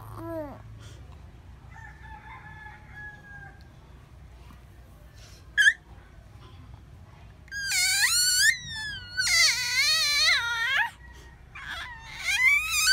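Baby squealing with delight: a short squeak, then long high-pitched wavering squeals in the second half, and another near the end.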